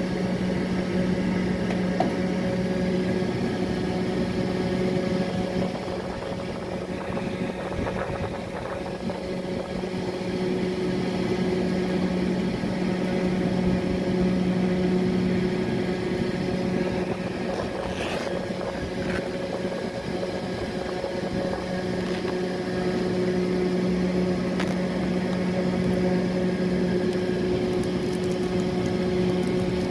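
Steady motor hum with a constant low tone, with faint clicks and rustles of a fabric glasses case being handled, most noticeable about two-thirds of the way through.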